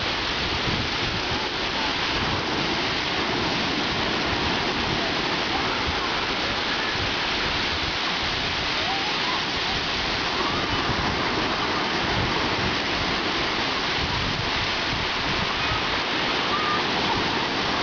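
Sea surf washing steadily in shallow water, with faint distant voices now and then.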